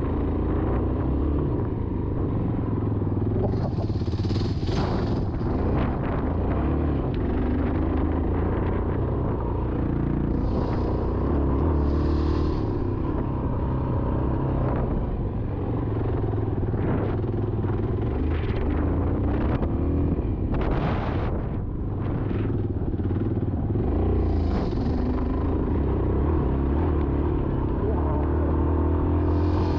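Yamaha XT350's single-cylinder four-stroke engine running under load as the dual-sport motorcycle rides a dirt track, the engine note rising and falling slightly with the throttle. A few brief rushes of noise come and go over it.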